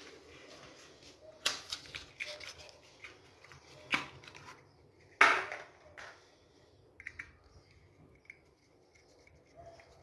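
Sharp clicks and knocks of handling a small plastic wifi smart-switch module and a screwdriver, the loudest about five seconds in, followed by fainter ticks.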